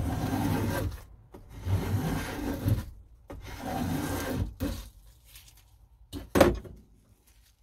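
A No. 220 block plane's freshly hand-sharpened iron cutting along the edge of a rough old pallet board in three rasping strokes of about a second each, taking off shavings. About six seconds in comes a single sharp knock.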